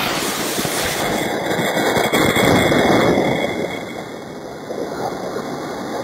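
Pyrotechnic spark fountain on a toy tractor hissing and crackling as it throws sparks, flame and smoke. It is loudest about two to three seconds in, then eases.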